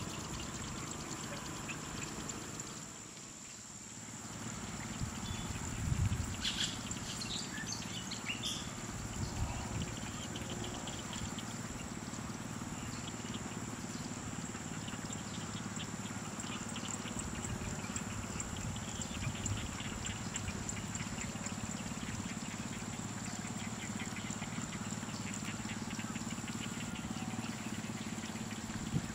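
Outdoor rural ambience: a steady high-pitched hum, with a few brief knocks and rustles a few seconds in and faint rapid ticking through the second half.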